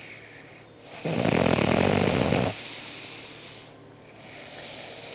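A sleeping man snoring: one loud snore about a second in, lasting about a second and a half, then a quieter breath that trails off.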